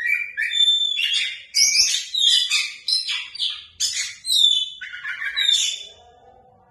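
Oriental magpie-robin (kacer) singing a loud, rapid, varied song of chirps, whistled slides and rattling notes, the song dying away about a second before the end.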